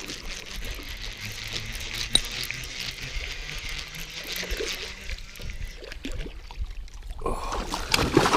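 Water splashing and trickling as a hooked bass thrashes on the line beside a kayak. A louder splash comes near the end as the fish nears the boat.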